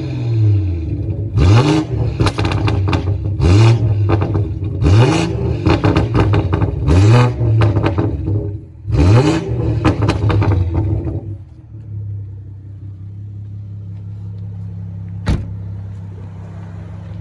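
Stage 2-remapped BMW M140i's 3.0-litre turbocharged straight-six being blipped repeatedly through its exhaust: quick rises and falls in revs, with crackles and pops on each overrun. About 11 seconds in it drops to a steady idle, with a single sharp pop a few seconds later.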